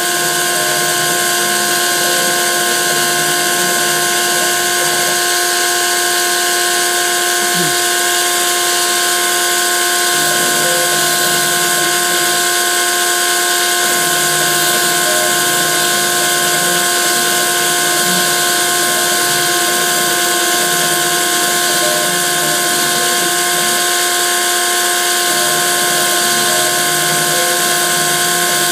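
Grizzly G0704 CNC mill running, its spindle-driven end mill cutting a Delrin sheet: a steady machine whine made of several held tones over a constant hiss.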